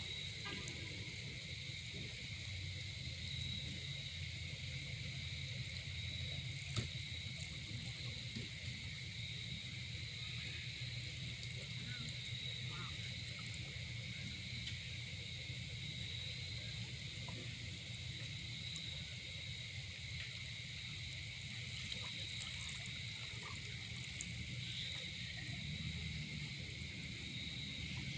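Steady dusk chorus of insects trilling on two even high pitches, over a low rumble, with one sharp click about seven seconds in.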